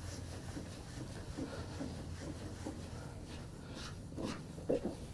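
Faint, irregular rubbing of a cloth rag on a mower's plastic hood, working polish into the faded plastic.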